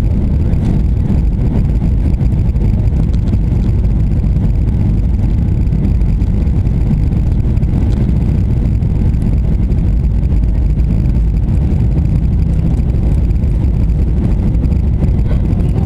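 Jet airliner cabin noise on descent: a steady low rumble of the jet engines and rushing airflow, heard from a window seat beside the engine, unchanging in level.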